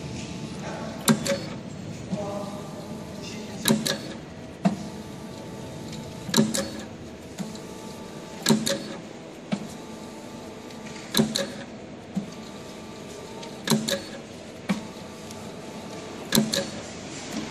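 SAVEMA feeder-conveyor belt running with an SVM 32i thermal transfer printer printing on paper: a steady motor hum, broken about every two and a half seconds by a quick group of sharp mechanical clacks as each piece is fed and printed, with a lighter single click between some cycles.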